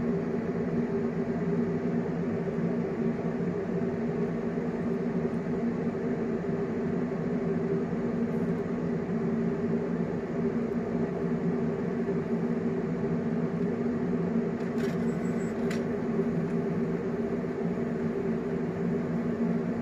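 Steady mechanical hum with a low drone that does not change, with two faint clicks about three quarters of the way through.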